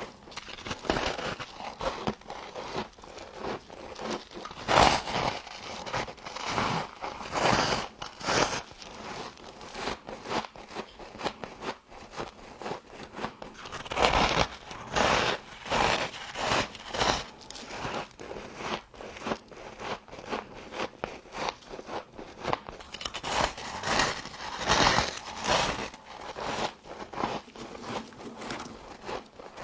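Frost being bitten and chewed close to the microphone: a long, irregular run of crisp crunches, louder in clusters.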